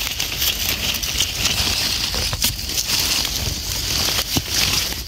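Crackling and rustling of dry leaf litter and forest soil as a hand works in beside termite mushrooms to dig them out, with a few sharp clicks, over a steady high hiss.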